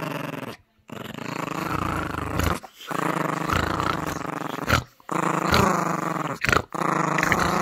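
Yorkshire terrier puppy play-growling during a tug-of-war over a plush toy: a string of long growls, each a second or two, with short breaks between.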